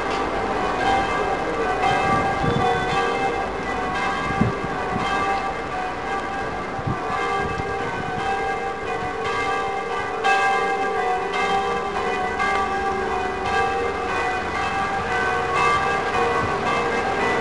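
Church bells pealing, several bells struck over and over in an overlapping, continuous peal, with low street traffic noise underneath.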